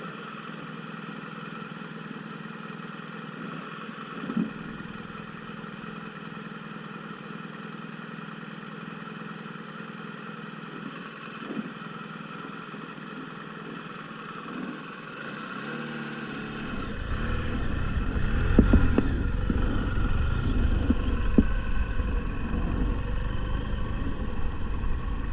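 Off-road vehicle engine running steadily, with an occasional single knock. About two-thirds of the way through it grows louder, with a deep rumble and repeated knocks and clatter.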